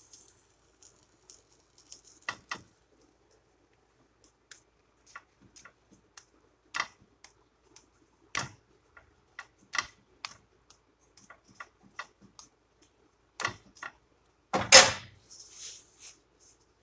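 Metal spatula tapping and scraping against a flat pan while folding and pressing a tortilla: scattered sharp clicks at uneven intervals, the loudest near the end, over a faint steady hum.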